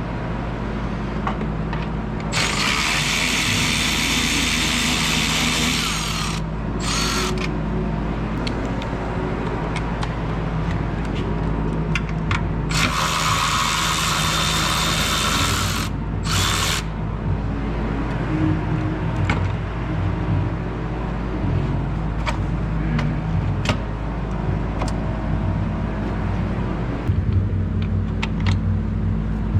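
A car engine running with a steady hum, joined twice by a loud, rough, high-pitched whirring noise lasting about three to four seconds each time, with scattered clicks. The noise is the kind the owner traced to a failing alternator on a 2005 Ford Taurus.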